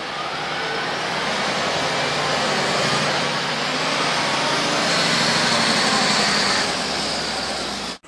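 Liebherr all-terrain mobile crane truck driving along a road: heavy diesel engine and tyre noise, growing louder toward the middle and easing near the end. A high whine joins about five seconds in.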